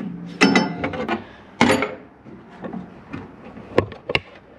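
Hand tools handled on a steel checker-plate floor: a spanner clanking against the metal, a few sharp metallic knocks and clicks, two of them ringing briefly.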